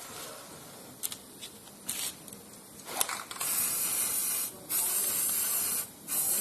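Repeated bursts of hissing, like air or spray, each about a second long, with a few light clicks.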